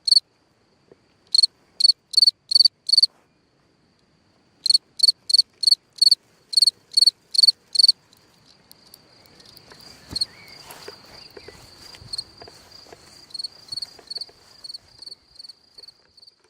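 Black ground-dwelling cricket chirping from its burrow: loud, clear, high chirps about three a second, pausing once briefly. About halfway through, the song turns into a softer, near-continuous trill with a faint crackling, rustling noise underneath, and softer chirps return near the end.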